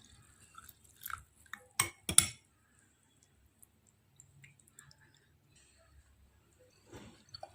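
Kitchen utensils clinking and knocking against one another while a hot drink is strained: a few sharp clinks between about one and two and a half seconds in, the loudest a pair just after two seconds, then only faint small ticks.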